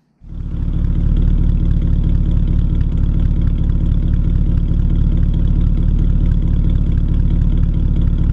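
Freshly restored 1937 Terraplane Six's flathead straight-six idling steadily, heard close at the tailpipe. The exhaust note cuts in abruptly just after the start.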